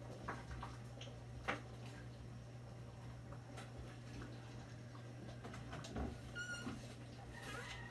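A short high-pitched animal call with several overtones about six seconds in, over a steady low hum and a few light clicks.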